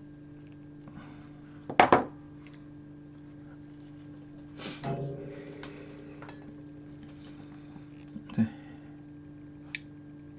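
A few short knocks and clatters, the loudest about two seconds in and others near the middle and near the end, from tools and parts being set down and handled on a workbench while wiring and soldering, over a steady electrical hum.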